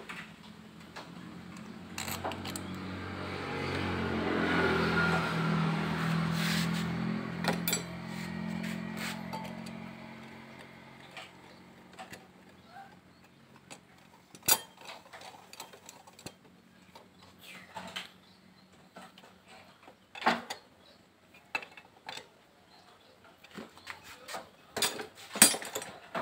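A motorcycle engine swells over a few seconds and then fades away. After that come scattered metallic clinks and taps of hand tools as the scooter's parts are put back together.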